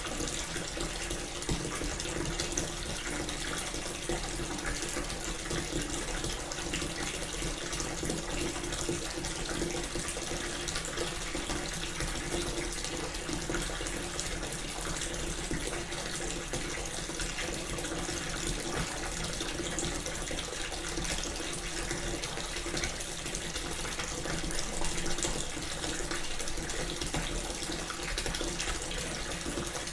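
Water running steadily from a tap into a filling bathtub, a continuous even rush.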